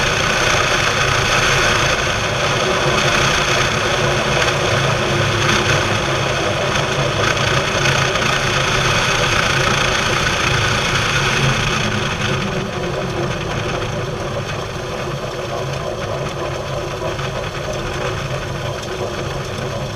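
Light aircraft rolling out on the runway after landing: the engine running at low power under a steady rush of wind and tyre rumble. The wind rush falls away about two-thirds of the way through as the plane slows.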